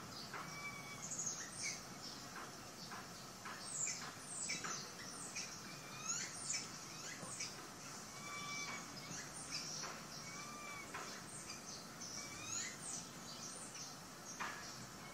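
Birds chirping: many short, high chirps sliding downward, mixed with arched whistled notes that recur every second or two.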